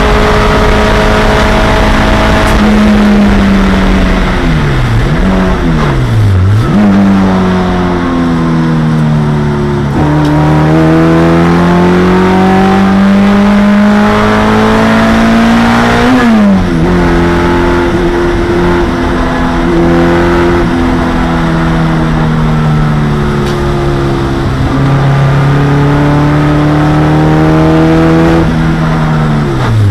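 A 1987 Honda CRX Si race car's four-cylinder engine, heard inside the cabin, running at high revs in fifth gear. It then drops its revs under braking, with two sharp blips as the driver downshifts toward third. The revs then climb again under full acceleration, with sudden drops at the upshifts about halfway through and near the end.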